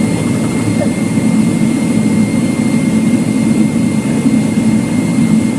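Steady hum of a Boeing 777-300ER's GE90 jet engines heard from inside the passenger cabin, with a thin steady whine above it.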